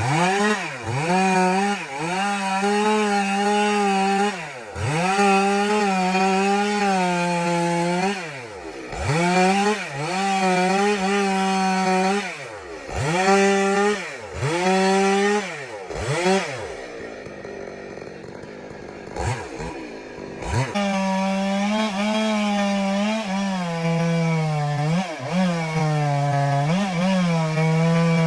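Stihl chainsaw cutting wood, revved to full throttle in repeated bursts of two to three seconds with quick drops toward idle between them. It idles for a few seconds about two-thirds through, then runs flat out again for the rest, its pitch dipping and recovering near the end as the chain is loaded in the cut.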